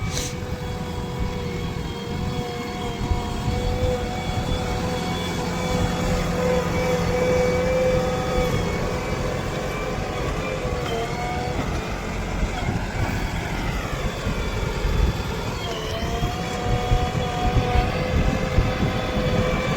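Heavy diesel machinery running steadily, with a low rumble under a constant whine. About two-thirds of the way through the pitch sinks and then climbs back up, as the engine is throttled down and up again.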